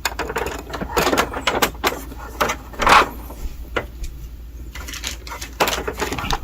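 Irregular sharp clicks and knocks, the loudest about three seconds in, from hinge and printer parts being handled and set down during an ADF hinge replacement on a Canon imageCLASS D1350.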